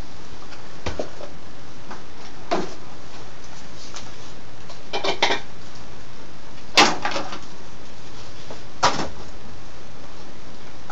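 A handful of short knocks and clunks from plastic and metal gear being handled and set down (an OxyClean tub, a plastic funnel, a cleaning rod on a cordless drill), over a steady background hiss. There is a quick cluster of knocks about halfway through and the loudest one about two-thirds of the way in.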